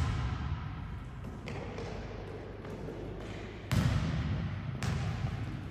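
Volleyballs smacking hard in a sports hall: a lighter smack about a second and a half in, then two loud ones nearly four and five seconds in, each echoing briefly.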